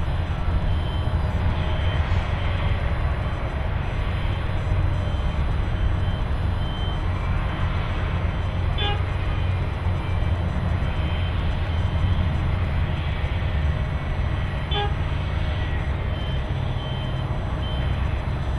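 Asphalt cold milling machine running with a steady low diesel rumble as it mills the old runway surface, its conveyor loading milled asphalt into a DAF CF dump truck. Short high beeps recur through it, and two short toots come about six seconds apart.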